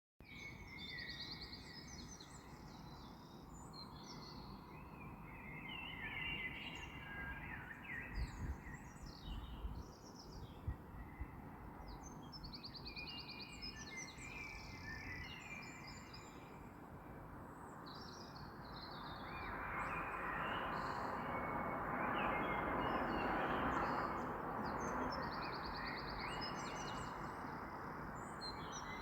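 Several birds chirping, trilling and calling in the early-morning chorus over a steady background hiss. The hiss swells louder for several seconds about two-thirds of the way through, and a few low thumps come in the first third.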